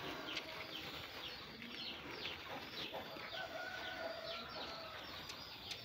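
Faint bird calls in the background: short, high, falling peeps repeating about twice a second, with one longer call about halfway through.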